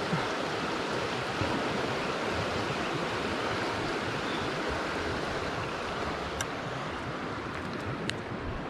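Creek water rushing steadily over rocks in a strong current, with a couple of faint clicks near the end.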